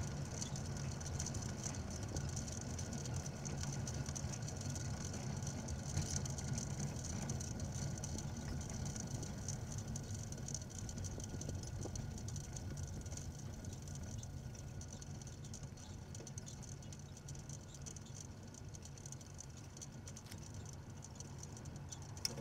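Steady riding noise from a moving bicycle: low rumble and wind on the bike-mounted camera's microphone, with a light rattle. It slowly grows quieter in the second half, and there is a sharp click just before the end.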